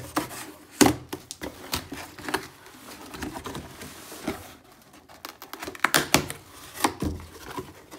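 A cardboard box being cut open and unpacked by hand: packing tape slit and torn, flaps and packing rustling, with a string of irregular sharp clicks and knocks.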